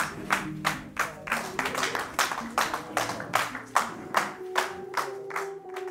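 Steady rhythmic hand clapping, about three claps a second, over music with held tones; the clapping fades and stops near the end.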